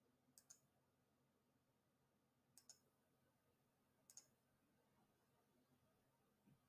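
Faint computer mouse clicks over near silence: three clicks about two seconds apart, each a quick double tick.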